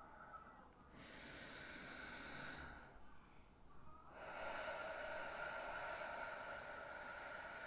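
A woman's slow, deep breaths close to the microphone: one breath lasting about two seconds starting a second in, then a longer one from about four seconds in.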